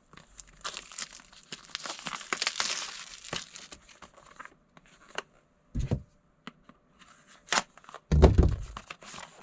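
Product packaging being opened and handled by hand: crinkling and tearing rustle for the first few seconds, then scattered light clicks and two short dull thumps.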